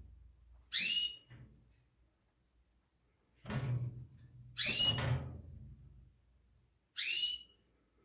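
Four short whistled bird calls spaced a few seconds apart, each sweeping quickly up and then holding one level pitch.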